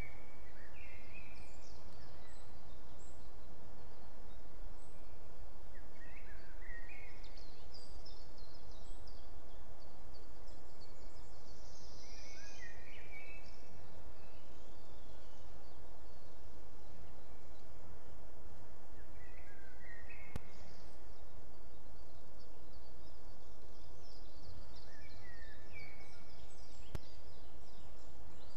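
Forest birdsong: short chirping songbird phrases come in bursts every few seconds over a steady low background rumble, with a couple of faint clicks near the end.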